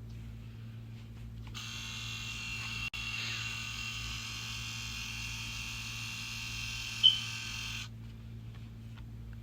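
Small motor of a DYMO LetraTag 100H Plus handheld label maker whirring steadily for about six seconds as it feeds and prints a label tape, with a sharp click near the end.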